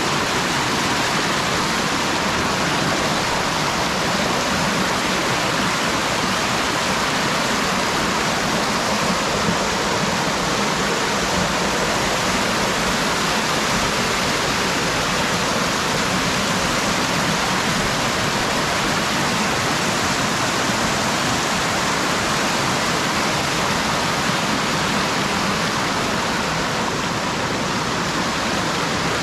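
Steady rush of a small stream of running water flowing and splashing over a solid bedrock channel.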